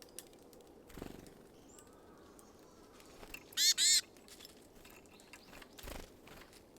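A wild bird at a feeder gives two loud, harsh calls in quick succession about three and a half seconds in. Two soft thumps come before and after the calls.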